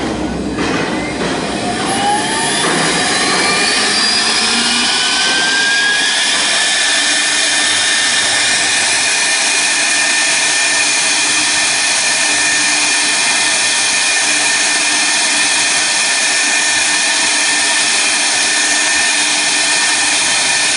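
CNC router spindle spinning up, its whine rising over the first few seconds, then running at a steady high pitch as the bit cuts clear acrylic sheet, with a constant hiss of cutting.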